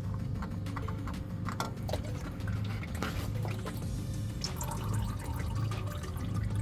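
Background music over motor oil running and dripping from the old oil filter as it is twisted off by hand, with small drips and clicks into the drain pan.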